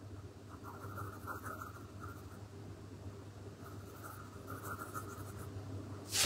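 Derwent Chromaflow coloured pencil scratching back and forth on drawing paper in two spells of strokes, filling in a colour swatch. Near the end comes one sharp tap.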